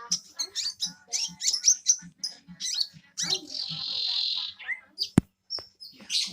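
Brown-throated sunbird (kolibri ninja) singing a fast run of short, high chirping notes, with a harsh hissing note about a second long midway through. A sharp click comes about five seconds in.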